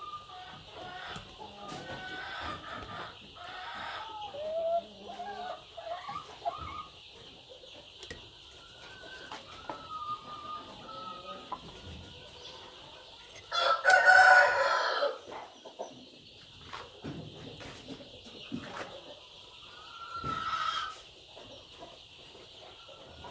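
Chickens clucking with short calls, then a rooster crowing once, loud and about a second and a half long, about fourteen seconds in, followed by another short call a few seconds later.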